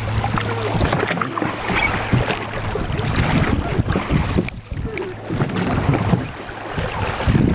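Wind buffeting the microphone over water splashing and sloshing around a rowing boat at sea.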